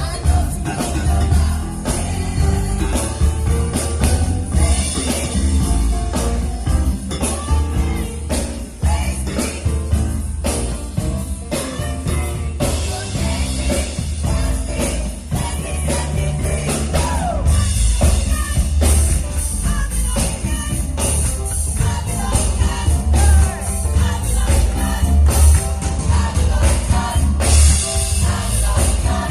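Band music with singing over a strong bass and a steady drum beat.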